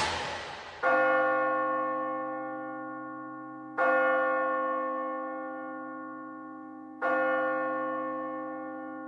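A large bell tolling slowly: three strikes about three seconds apart, each ringing on and dying away. In the first second the tail of a loud rushing noise fades out before the first strike.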